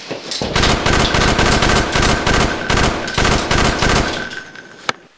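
Machine-gun fire sound effect: one long rapid burst of automatic gunshots lasting about four seconds, then tailing off, followed by a single sharp click near the end.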